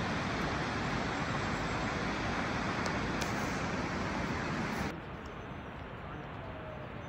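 Steady rushing outdoor noise with no pitch or rhythm. It drops suddenly to a quieter, duller hiss about five seconds in.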